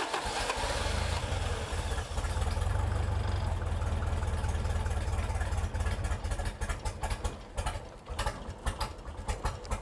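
Toyota 22RE fuel-injected four-cylinder being cranked on its starter and trying to catch without starting, the sign of a fuel-delivery fault that keeps it from running. About six seconds in, the even cranking gives way to uneven, spaced pulses.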